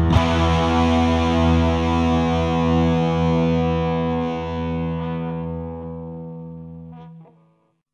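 Background rock music: a distorted electric guitar chord held and left to ring, fading slowly and stopping about seven seconds in, the end of the song.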